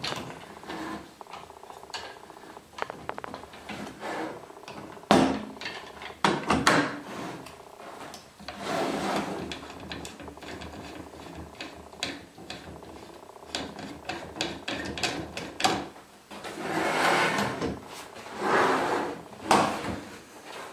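Wooden boards of a homemade lathe jig being handled on a table: scattered knocks of wood on wood, a few sharp loud ones about five to seven seconds in, and several stretches of boards scraping and sliding against each other.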